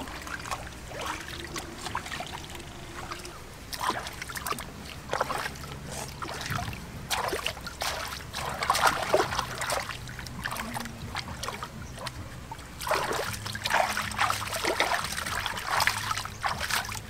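Hands splashing and swishing in shallow river water while washing squid: irregular splashes and trickles, busiest about nine seconds in and again from about thirteen seconds.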